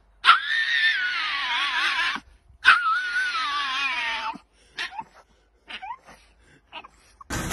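Small dog screaming: two long, high, wavering wails, then a few short yelps and whimpers.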